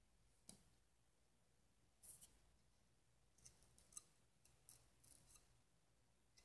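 Faint, scattered short clicks and light scratches of a small curved knife blade being handled and worked against small pieces, most of them bunched in the second half.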